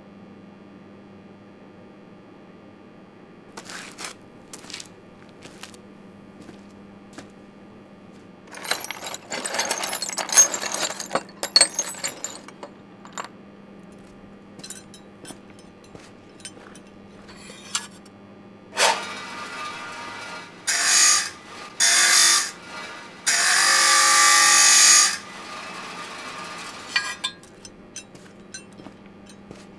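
Metal tools clinking and scraping as they are handled on a workbench, with scattered clicks early on and a run of loud scraping strokes in the second half, the longest lasting about two seconds. A low steady hum runs underneath.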